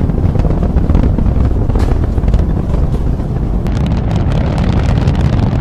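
Loud, steady low rumble of a rocket lifting off, a sound effect in an animated clip's soundtrack.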